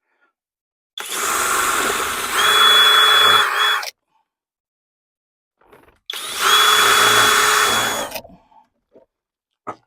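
Cordless drill driving self-drilling screws to mount a cup holder to the truck dash: two separate runs of about three and two seconds, each a steady whine that grows louder partway through as the screw bites.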